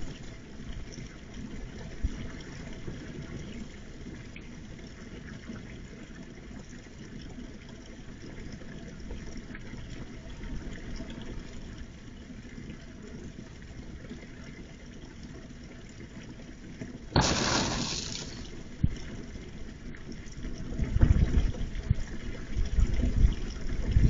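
Steady low outdoor hiss and rumble from a security camera's microphone. About two thirds of the way through, a loud rush of noise lasts about a second, and low rumbling swells follow near the end.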